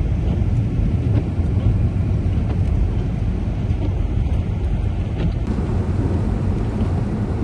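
Car driving on a wet highway in heavy rain: a steady low rumble of road and tyre noise, with faint scattered ticks.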